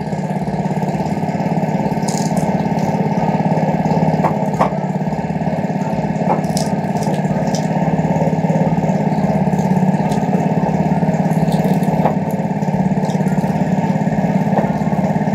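Small Honda four-stroke petrol engine on a sugarcane juice machine running steadily, driving the crushing rollers while a stick of sugarcane is pressed. A few light clicks sound over the hum.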